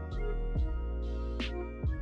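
Background music: sustained keyboard notes over a deep bass with a steady beat.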